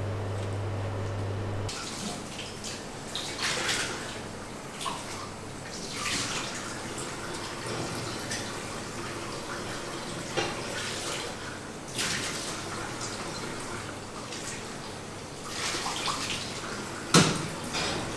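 Water running and splashing in a sink, with scattered clinks and knocks; a steady low hum stops about two seconds in, and the sharpest knock comes near the end.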